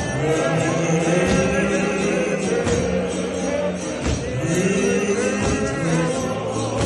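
A large crowd of men singing a hymn together in harmony, holding long drawn-out notes.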